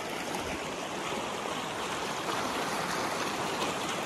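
Shallow stream flowing fast over flat rock, a steady wash of running water.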